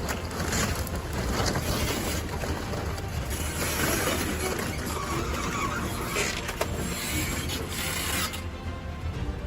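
Background music over a dense, noisy machinery sound with occasional sharp knocks.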